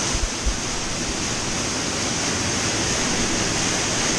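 Rushing water of an underground cave stream, a steady hiss, with two low thumps in the first half-second.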